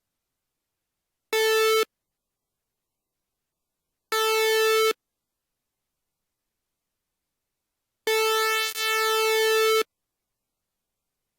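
Synthesizer tone at one steady pitch, with a bright, buzzy timbre, sounded three times with silence between: a short note, a slightly longer one, then a long one that dips briefly partway through. These are the electronic notes of a school bell chime being built.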